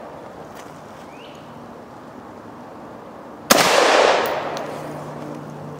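A single rifle shot from a Colt AR-15 A2 firing 5.56 NATO about three and a half seconds in: a sharp crack whose echo dies away over about a second and a half.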